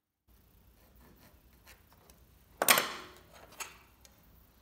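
Workbench handling sounds from a wooden board and a steel rule being laid out for marking: a few light clicks, then a louder knock and scrape about two and a half seconds in that fades over about half a second, and a smaller knock a second later.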